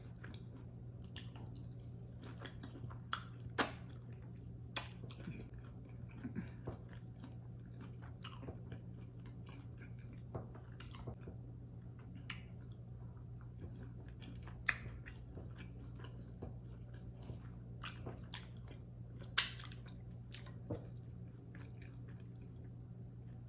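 A person eating, with close-up wet chewing and mouth sounds and scattered sharp clicks. A steady low hum runs underneath.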